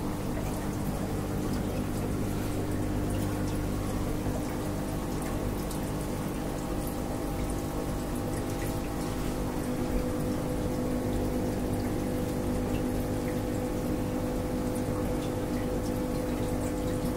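Aquarium pump running steadily, a constant low electric hum under the sound of circulating water trickling and splashing, with faint scattered drips and ticks.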